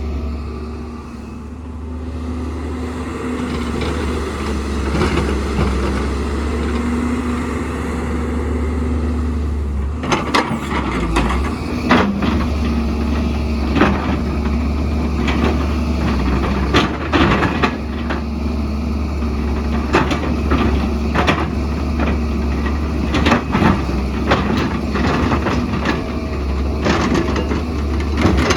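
Diesel excavator engine running steadily under load. From about ten seconds in come repeated clanks and scrapes of digging into rocky ground.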